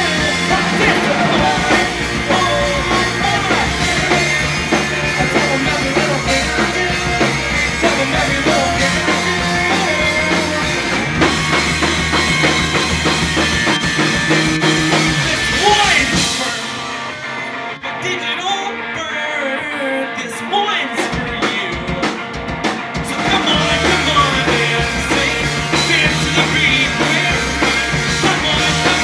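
Live rock band playing at full volume. A little past the middle the bass and drums drop out for about four seconds, leaving a thinner sound, and then the full band comes back in.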